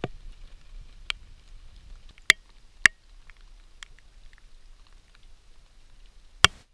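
A few sharp clicks or taps at irregular intervals over a faint low background, three of them much louder than the rest, the loudest near the end.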